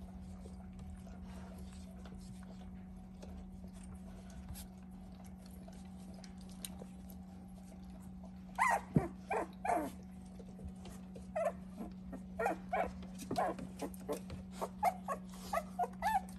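Two-week-old puppies whimpering and squealing. A run of short, high cries starts about halfway through and comes two or three a second, over a steady low hum.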